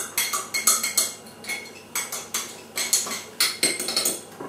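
Metal spoon stirring water and glitter in a glass jar, clinking against the glass in quick, uneven taps, about three a second.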